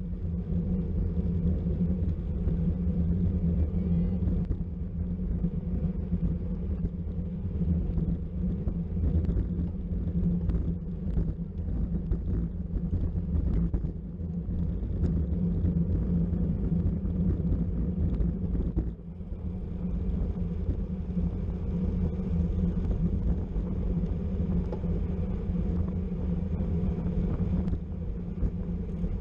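Wind buffeting the microphone of a camera riding along on a racing bicycle, over a steady low road rumble from the tyres, dipping briefly about two-thirds of the way through.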